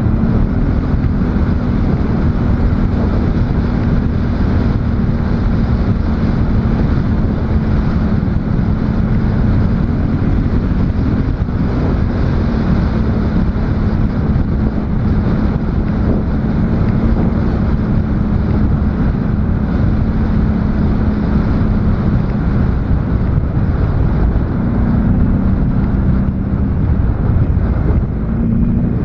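ATV engine running at a steady pace under way, its note shifting up a little a couple of times, with heavy wind buffeting on the microphone.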